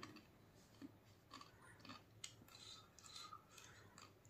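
Faint chewing of a super-spicy chip: a scatter of soft, irregular crunches and mouth clicks.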